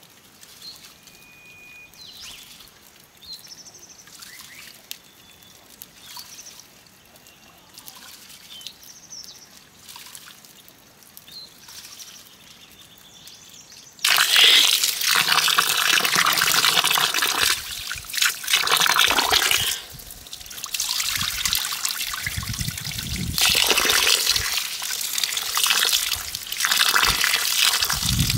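A few faint chirps over quiet outdoor ambience, then about halfway through a stream of water starts suddenly, splashing into a plastic bowl of rice as hands rub and swish the grains to wash them.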